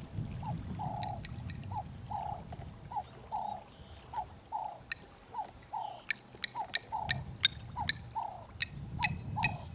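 A steady run of short animal calls, about two a second, each sliding slightly down in pitch. From about halfway through, rapid sharp high peeps or clicks join in, over a low rumble that fades in the middle and comes back.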